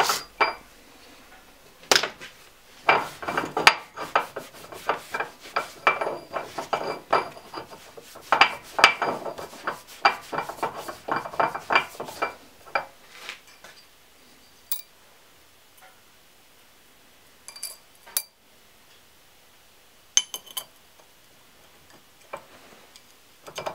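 Steel parts of a Minsk motorcycle crankshaft clinking and scraping against each other with a faint metallic ring, in a dense run lasting about ten seconds. Then come a few separate light clinks as the needle-roller cage and connecting rod are fitted onto the crankpin.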